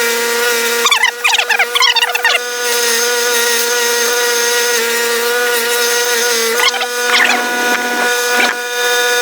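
Bench buffing wheel motor running with a steady hum. A steel G clamp is pressed against the spinning wheel during buffing, giving wavering squeals and rubbing about a second in and again from about six and a half to eight and a half seconds in.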